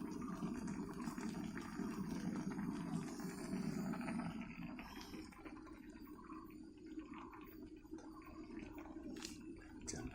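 Pot of soup boiling, a low bubbling that eases off about halfway, with a couple of sharp ticks near the end.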